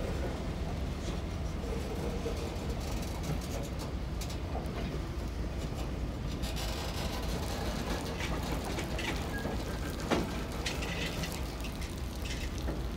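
Freight cars of a slow-moving local freight train rolling past, a steady low rumble of wheels on rail, easing toward a stop. There is a sharper click about ten seconds in.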